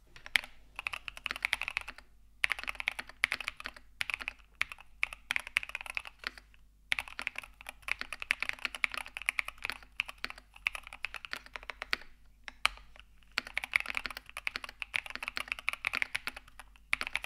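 Fast typing on a modded hot-swap mechanical keyboard fitted with heavier switches, case foam and a thin PE foam sheet over the PCB, the mods meant to give a deeper, more bassy keystroke sound. The typing comes in four runs of rapid key clicks with brief pauses between them.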